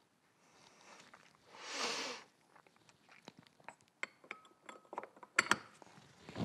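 Metal parts of a power steering pump clicking and clinking together as its upper plate is fitted during a rebuild, with a cluster of sharp taps in the second half, a few ringing briefly. A short swish about two seconds in.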